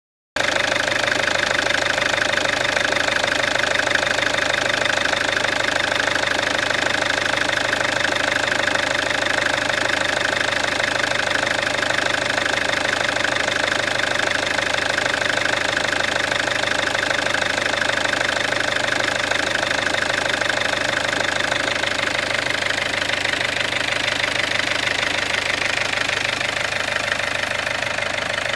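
Peugeot 407's 2.0 HDi four-cylinder turbodiesel engine running steadily, freshly fitted with a full new timing set at 400,000 km.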